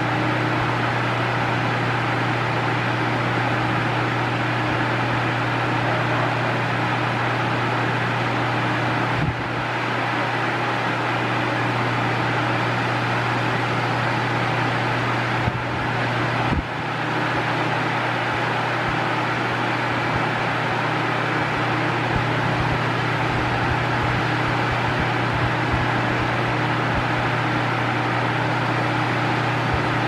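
Mondial 40 cm 140 W pedestal fan running at top speed: a steady rush of air over a low motor hum.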